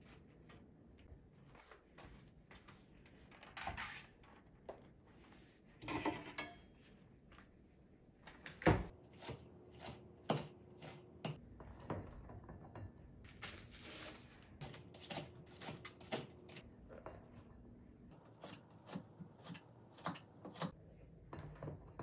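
Kitchen food-prep handling sounds. A couple of short rustling splashes come from wet perilla leaves being shaken out. Then comes a run of light knocks and clinks from a plastic cutting board, utensils and a ceramic bowl being handled, with the sharpest knock about nine seconds in.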